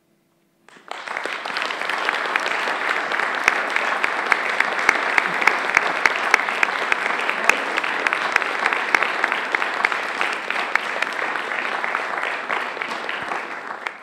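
Audience applause, breaking out after a brief silence about a second in and continuing steadily, with single louder claps standing out from the mass.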